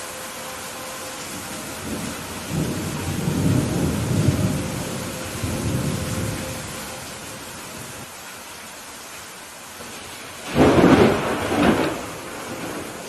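Steady rain during a thunderstorm. A low rolling rumble of thunder builds and fades over several seconds, then a louder, sharper thunderclap comes about ten and a half seconds in.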